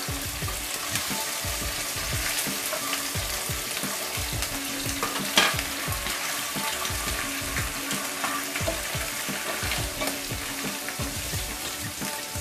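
Canned tuna sizzling in hot oil with chopped garlic in a frying pan, crackling throughout, as a wooden spatula stirs and scrapes it about the pan; one sharper click about five seconds in.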